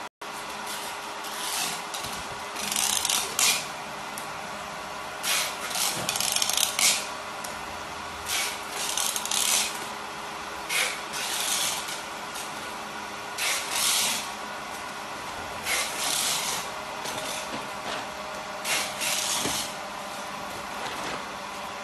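Mattress compressing and packing machine running with a steady hum, over which come about fifteen short rustling scrapes at uneven intervals, from the plastic-wrapped mattress roll and packing sheet being handled.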